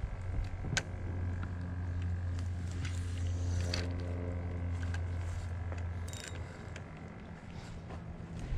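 Spinning reel cranked to retrieve the line: a steady low gear whir lasting about six seconds, with a couple of sharp clicks.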